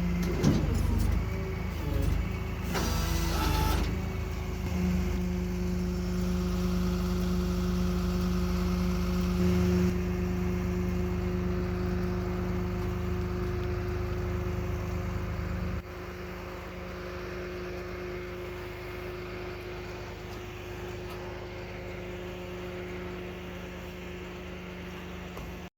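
Flatbed tow truck's engine running steadily while the truck unloads a car. There is a short burst of hiss about three seconds in, and a little past halfway the running drops to a lower, quieter level.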